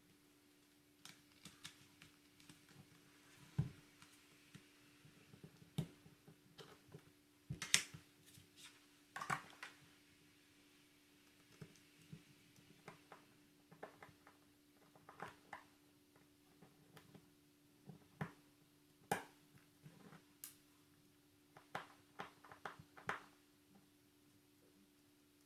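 Irregular small clicks and taps of a smartphone's plastic parts and hand tools being handled while the ZTE Nubia V5 is taken apart, over a faint steady hum.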